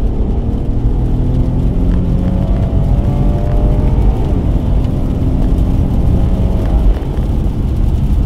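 2016 Dodge Challenger's 3.6-litre V6 pulling hard in third gear, heard from inside the cabin: the engine note climbs steadily in pitch over several seconds and eases off about seven seconds in.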